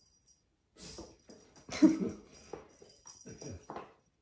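Kitten pouncing and scuffling on a rubber mat while batting at a dangling wand toy, with a small bell jingling. The knocks and scrabbles come in irregular bursts, the loudest about two seconds in.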